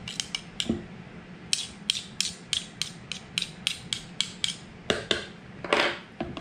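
Metal spoon clicking against the side of a plastic mixing bowl while stirring pancake batter, a quick regular beat of about three to four taps a second, with a longer scrape through the batter near the end.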